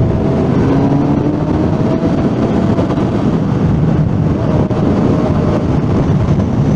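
Suzuki GSR 600's inline-four engine running as the motorcycle rides along, mixed with wind rushing over the microphone, at a steady level.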